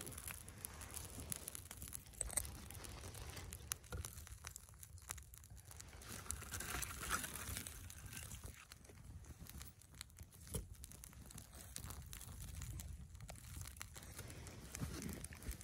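Small feather-stick campfire crackling with scattered sharp pops, while bundles of dry twigs are laid onto it and rustle against the burning sticks.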